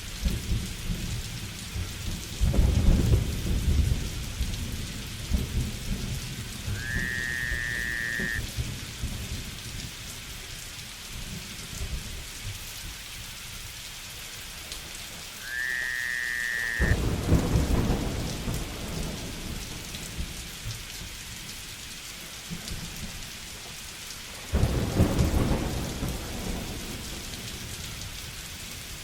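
Steady rain with three rolls of thunder: one a couple of seconds in, one past the middle and one near the end. A short high whistle sounds twice in between.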